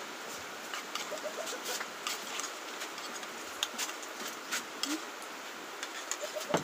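Steady rain hiss with many sharp clinks of a metal spoon against a ceramic bowl and plate, and a few faint chirps.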